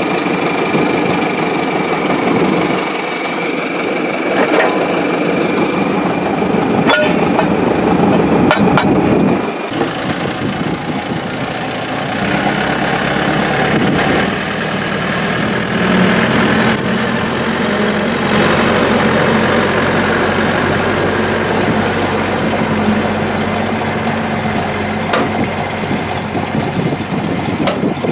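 Caterpillar D7 crawler bulldozer's diesel engine running, with a few sharp clanks. About ten seconds in the sound briefly drops, then settles into a steadier engine note.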